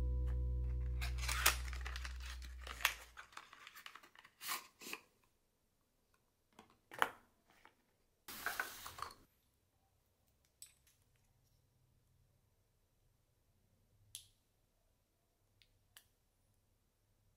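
Toiletries and their packaging handled over a fabric toiletry pouch: scattered crinkles, rustles and light clicks, with one louder scratchy rustle lasting about a second just past the middle. Background music fades out in the first few seconds.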